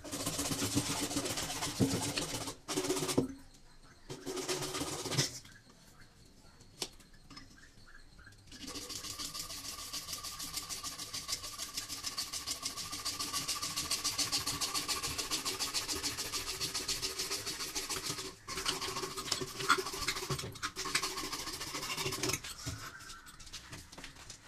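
Hacksaw sawing through a water pipe in quick back-and-forth strokes. It stops and restarts a few times, with the longest unbroken run in the middle.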